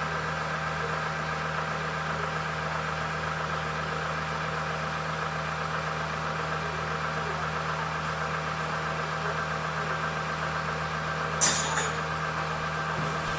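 Chevalier FCL-1840D lathe running with a steady mechanical hum. Near the end there are two sharp clicks close together.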